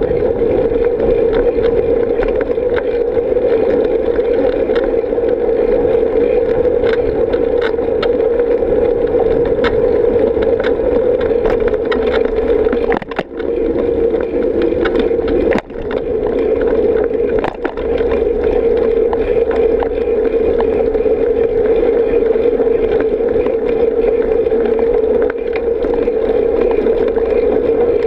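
Steady wind rush on the microphone and tyre rumble from a bicycle riding a paved bike path, with small rattles and knocks from the bike. The noise briefly dips three times about halfway through.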